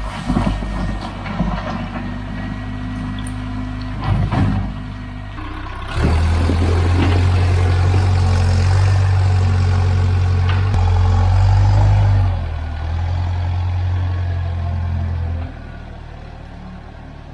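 Hough 30 wheel loader's engine working. It revs up under load about six seconds in, holds high for several seconds, then drops back near the end. There are a couple of knocks in the first few seconds.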